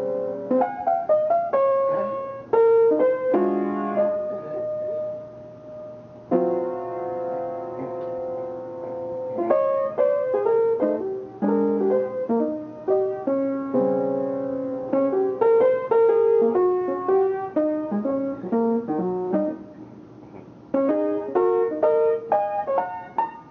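Jazz piano playing: held chords that ring and fade, alternating with quick runs of single notes.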